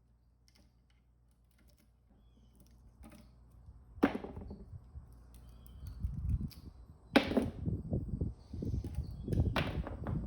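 Three sharp knocks, with scraping and rattling between them, as an old electric motor is broken apart for its aluminum and copper.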